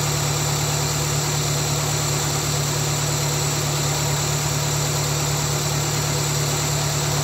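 Suzuki Swift engine idling with the air filter off, a steady hum with a heavy, stop-start vibration that feels like a misfire. The owner suspects a dirty throttle body behind the rough, fluctuating idle.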